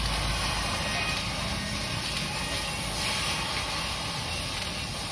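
Oxy-fuel cutting torch cutting through a steel truck chassis rail, a steady hiss of the flame and oxygen jet.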